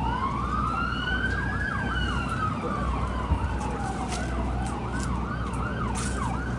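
Two emergency vehicle sirens sounding together: one a slow wail rising and falling over a few seconds, the other a fast yelp of several sweeps a second. Wind rumbles on the microphone underneath.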